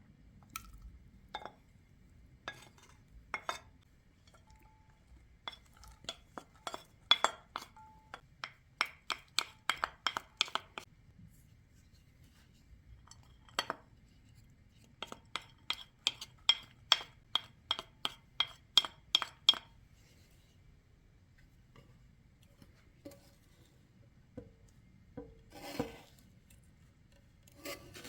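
A utensil clinking against a glass bowl as the salad is mixed. The strokes come in two quick, even runs of about three a second, with scattered single clinks between them.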